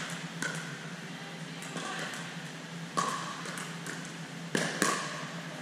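Plastic pickleball being hit back and forth with paddles in a rally: about five sharp, hollow pocks with a short ring, two in quick succession near the end, echoing in a gym hall.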